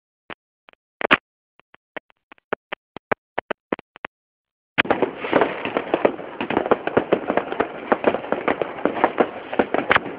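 Fireworks going off: scattered single bangs and pops for the first four seconds or so, then from about five seconds in a dense, continuous crackle of many overlapping bursts.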